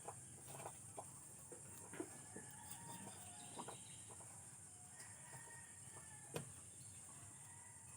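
Quiet farmyard background with faint chicken clucks and other bird calls, a few scattered light clicks and one sharper tap about six seconds in, over a steady high hiss.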